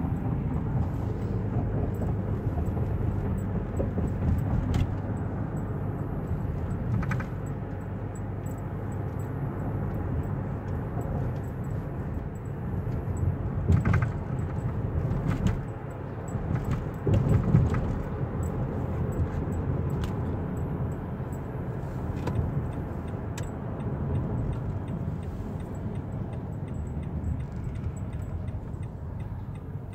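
Car cabin noise while driving: a steady low rumble of engine and road, with scattered small clicks and rattles and a couple of louder bumps around the middle.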